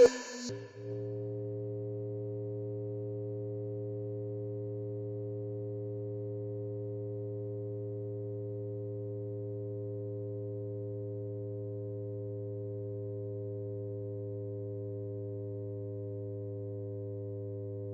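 Eurorack modular synthesizer holding a steady electronic drone of several pitches stacked together, unchanging and held on. Just before it settles, about a second in, the busier patch sound cuts away with a short dip.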